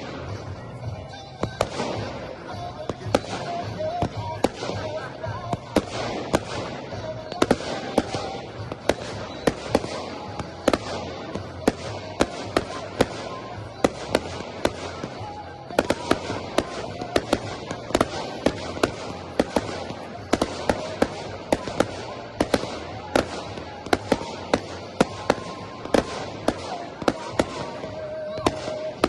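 Professional-grade (category F4) fireworks display: a rapid, irregular series of sharp aerial shell bursts, often several bangs a second, some in quick clusters.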